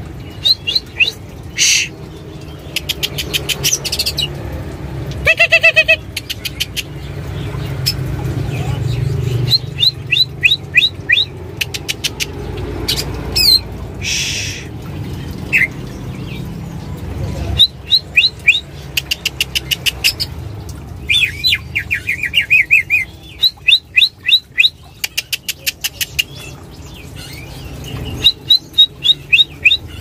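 Caged songbirds singing: repeated trains of rapid, sharp chirps, loud and coming in bursts again and again, over a low background rumble.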